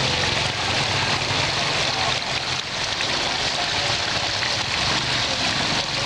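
Water splashing and pouring steadily in a small handmade model waterfall and fountain, with a low steady hum underneath.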